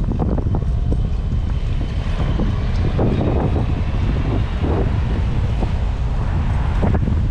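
Wind buffeting the microphone of a bicycle-mounted camera while riding. Through it comes the clatter of the bike jolting over wet brick paving, many short knocks.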